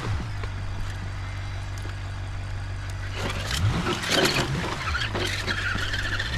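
Simulated engine sound effect for an RC crawler truck: a steady low idle with short revs that rise and fall a few times. A rough, noisy stretch with sharp clicks comes about three to five seconds in.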